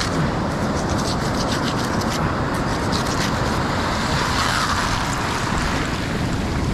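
Steady wash of surf on the beach, with short scraping clicks in the first few seconds as a blade saws at a woven sand sack lying in the shallows.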